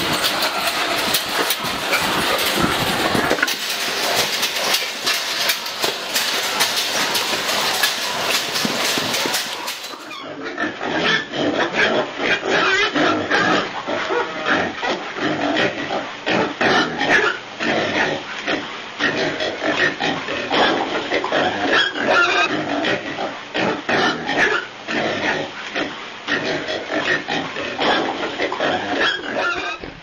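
Domestic pigs at feeding time. A dense din of many animals fills the first ten seconds, then gives way to closer, separate grunts.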